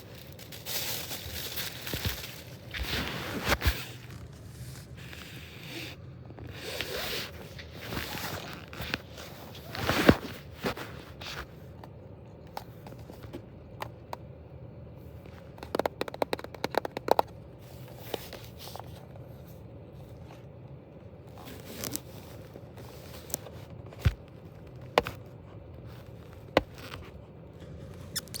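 Packaging being handled and torn open: rustling, crinkling and tearing through the first ten seconds or so, then a quick run of clicks and a few scattered taps.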